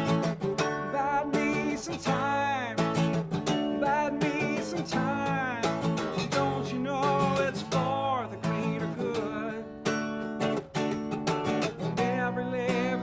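Solo acoustic guitar strummed in a steady rhythm, with a bending, wavering melody line carried over the chords.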